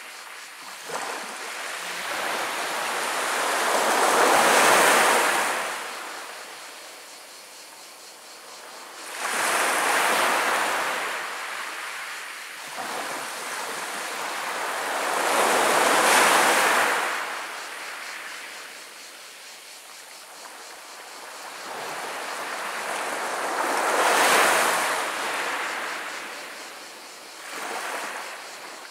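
Small sea waves washing up and rolling over a pebble beach, rising and falling in slow surges, five in all, each building and fading over a few seconds, the last one weaker near the end.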